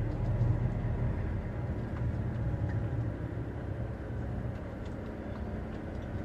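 Truck's diesel engine running at low speed as the lorry rolls slowly, heard inside the cab as a steady low hum.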